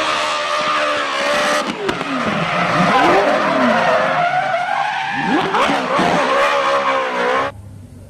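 Toyota GT86 drift car's engine revving up and down hard while its tyres squeal in a long sideways slide; the sound stops suddenly near the end.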